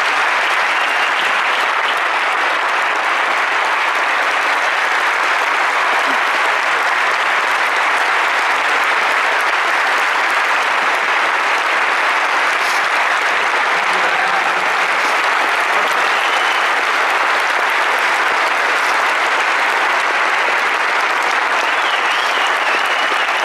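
Large audience clapping, a dense, steady applause that holds at an even level without letting up.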